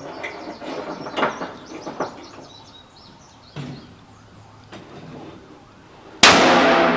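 Gunshots at an outdoor shooting range: several sharp reports, spaced a second or so apart. Near the end a much louder steady sound with held tones cuts in suddenly.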